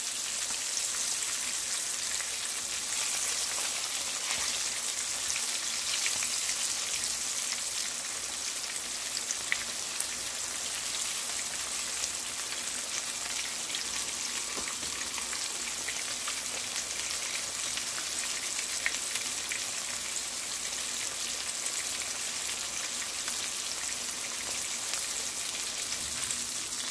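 Coated fish fillets frying in hot oil in a frying pan, their second side cooking after being flipped: a steady sizzle with scattered small crackles and occasional pops.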